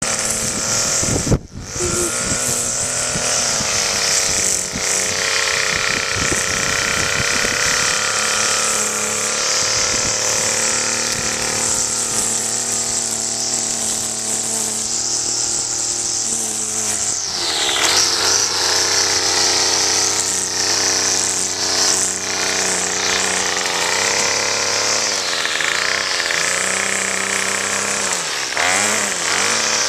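Gas string trimmer running as it cuts grass, its small engine dipping and rising in pitch as it is throttled. A single sharp knock comes about a second and a half in.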